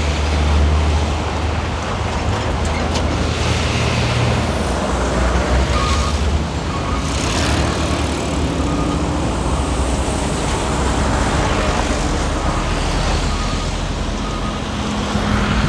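Road traffic noise heard from a moving vehicle: a steady low rumble of engine and tyres, with other vehicles swelling past a few times.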